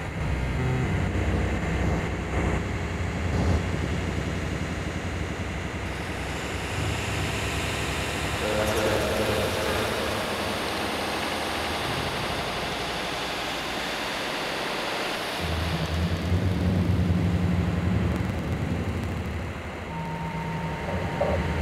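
Wind rushing and buffeting the microphone, with a low rumble that drops away for a few seconds in the middle and then comes back.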